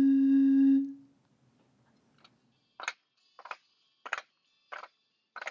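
A steady hooting note blown across the mouth of a green glass bottle, stopping about a second in. After a short pause come five evenly spaced taps, about 0.6 s apart, on the wooden rollers of a foot massager, each a sharp knock with a faint ring.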